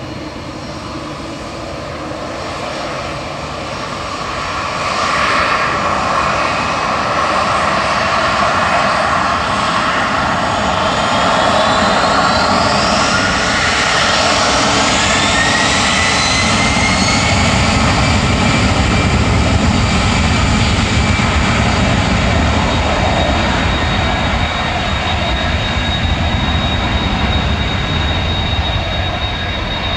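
Airbus A310-304's twin General Electric CF6-80C2 turbofan engines running as the airliner taxis and turns onto the runway. The sound grows louder about five seconds in, a whine rises in pitch around the middle, and a low rumble builds in the second half.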